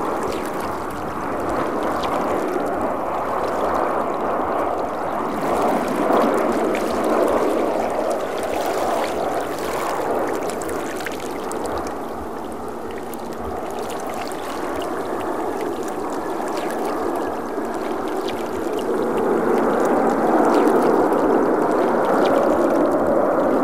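Jet engine roar of a Boeing 737-800 with CFM56-7B engines, a steady rushing noise that swells near the end and then cuts off suddenly.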